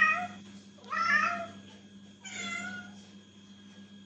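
Domestic cat meowing three times, about a second apart, each call short, the last one softer. The owner takes the calls for the cat asking to go outside.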